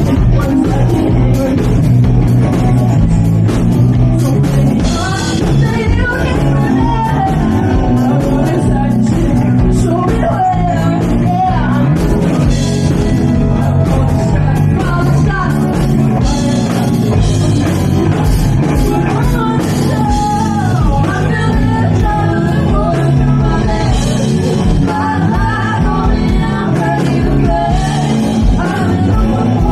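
Live rock band playing a song: drum kit, electric guitar and electric bass, with two female singers sharing the lead vocal.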